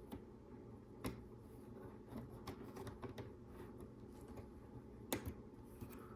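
Small LEGO Technic plastic pieces clicking and tapping as they are handled and fitted together, with sharper clicks about a second in and about five seconds in.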